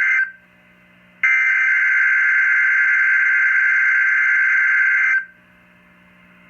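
Emergency Alert System SAME header data bursts on a NOAA Weather Radio broadcast, encoding a Required Weekly Test. One burst cuts off right at the start, and after about a second's pause a complete long header of steady, buzzy two-tone data plays for about four seconds, then stops.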